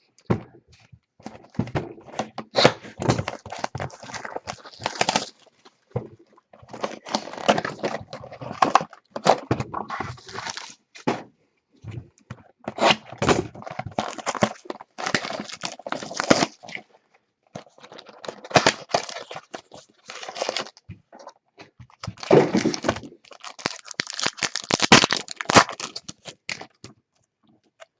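Trading card pack wrappers being torn open and crinkled by hand, in repeated clusters of rustling with short pauses between.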